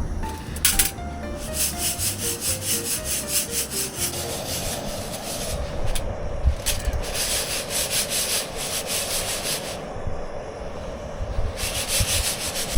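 Rhythmic scraping and rubbing, coming in stretches with short pauses about six and ten seconds in. A short descending run of musical notes plays over the first few seconds.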